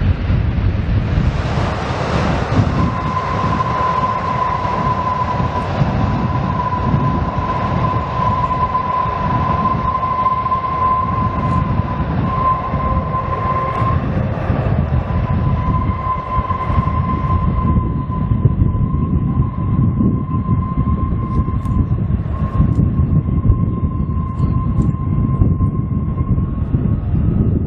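Boeing 777 airliner landing and rolling out on the runway: a loud, steady low rumble from its twin turbofan engines, with a steady high engine whine that sets in about three seconds in and holds almost to the end.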